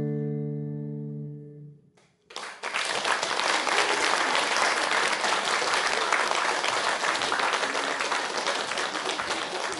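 A children's choir's final held chord fades away. After a moment's silence an audience breaks into steady applause.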